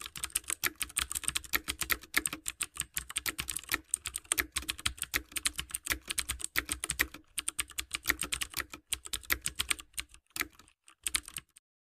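Computer keyboard typing: rapid, uneven keystrokes with a few brief pauses, thinning out and stopping near the end.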